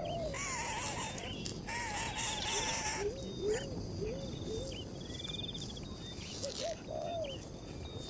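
Birds calling outdoors: a string of short rising-and-falling call notes, several in quick runs, with short high chirping trills over them. A high hiss comes with the calls during the first three seconds.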